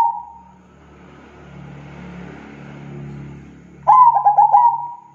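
Zebra dove (perkutut) cooing: a quick stuttering run of coo notes that ends in a drawn-out note, trailing off at the start and sung again about four seconds in. Between the two phrases a low rumble swells and fades.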